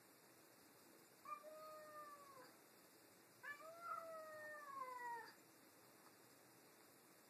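Domestic cat yowling twice in a standoff with another cat: two long drawn-out howls, the second longer, rising and then falling in pitch. A hostile warning yowl between two cats.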